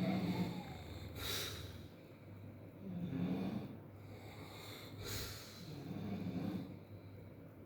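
A person snoring. There are three snores about three seconds apart, each a low buzzing snore followed by a hissing breath.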